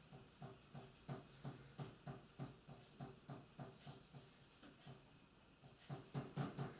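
Kitchen knife sawing back and forth through a layered sponge cake, faint strokes about three a second; they stop about four seconds in and start again near the end.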